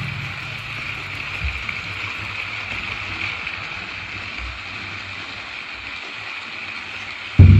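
Steady background hiss with a faint low engine rumble; near the end a demolition derby car's engine suddenly revs loud.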